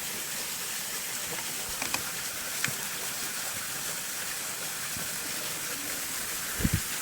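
Steady rush of running water from a creek or small waterfall, with a few faint ticks and a short low thump near the end.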